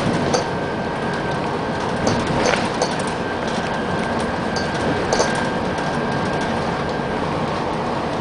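Moving bus heard from the upper deck: a steady rumble of engine and tyres on the road, with a faint steady whine that stops about seven seconds in and scattered light rattles and clicks from the bodywork.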